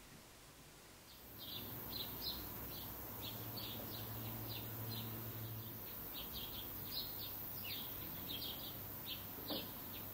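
Small birds chirping, short high chirps coming irregularly a few times a second, over a steady faint high hiss that starts about a second in.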